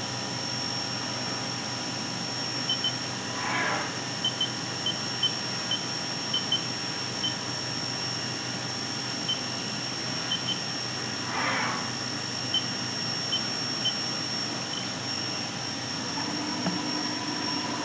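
CNC machining center with a fourth-axis rotary table, running with a steady hum and a constant high whine while the part is turned around. There are scattered short electronic beeps from the control, and twice a brief whine falling in pitch as the axis moves.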